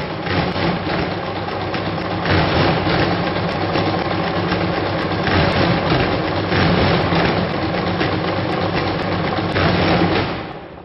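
An engine running steadily with a rough, noisy drone, which fades and cuts off near the end.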